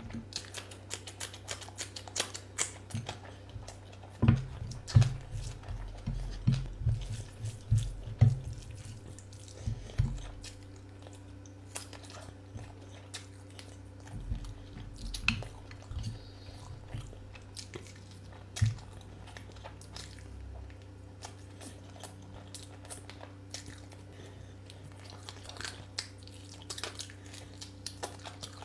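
A person eating: chewing with many short, irregular mouth clicks, busiest in the first third, over a steady low hum.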